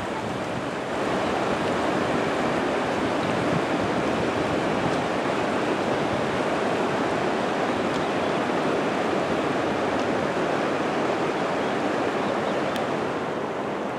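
Waterfall rapids: fast-flowing water rushing steadily, a little louder from about a second in.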